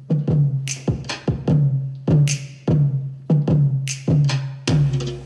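Hip-hop beat playing on its own, without vocals: drum-machine kicks and snares about twice a second over a low, booming bass that dies away after each hit, with bright cymbal hits every second or so.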